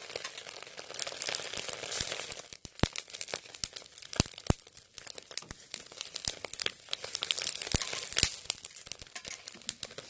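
Chicken pieces grilling in a wire basket over a charcoal fire, sizzling and crackling with irregular sharp pops. The hissing sizzle dies down about two and a half seconds in, leaving scattered pops and crackles.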